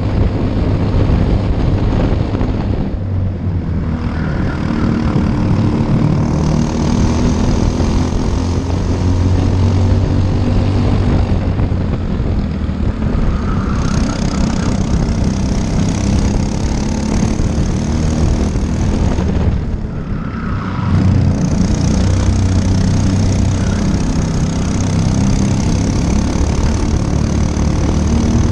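Briggs & Stratton LO206 single-cylinder four-stroke kart engine running hard at racing speed. Its note falls away twice as it comes off the throttle, about three seconds in and again about twenty seconds in, then climbs back up.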